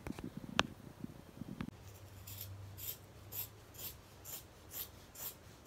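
Scissors cutting through heavy cotton canvas (painter's drop cloth), snipping steadily about twice a second from about two seconds in. A few handling clicks and rustles come before the cutting starts.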